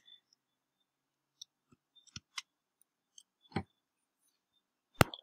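A few isolated clicks of computer keyboard keys and a mouse button, spaced irregularly, the loudest near the end.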